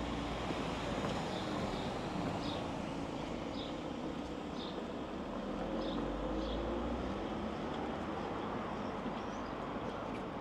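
Steady city-street background of traffic rumble, with short bird chirps now and then.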